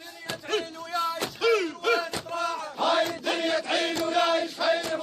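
A crowd of men chanting a hosa refrain in unison, loud and rhythmic, with sharp hits marking the beat.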